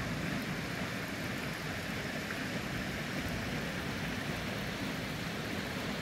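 Steady rush of Unoko Falls, a waterfall pouring into its pool, an even hiss of falling water.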